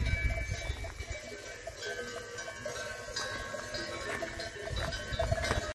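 Cowbells on grazing cows ringing on and off, their tones of several different pitches overlapping.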